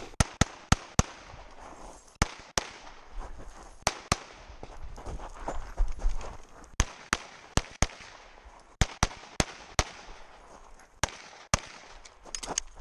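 Pistol fire on a competition stage: about twenty sharp shots, fired in quick pairs and strings of three or four, with short pauses between strings.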